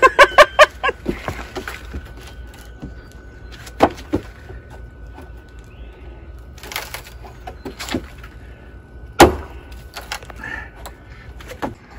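A steel pry bar levering up old wooden deck boards: scattered knocks and clicks of metal on wood, with one loud knock about nine seconds in.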